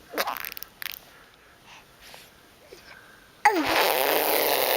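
Fart noises in a fart-sound contest: a few short sputters in the first second, then after a pause a long, loud, sputtering one starting about three and a half seconds in.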